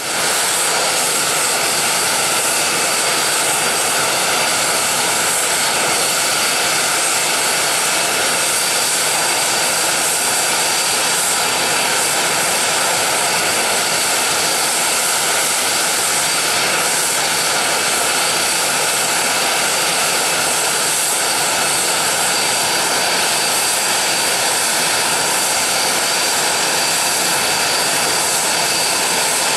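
Twin Honeywell F124 turbofan engines of an Aermacchi T-346 jet trainer running steadily on the ground, a constant rushing noise with a high turbine whine.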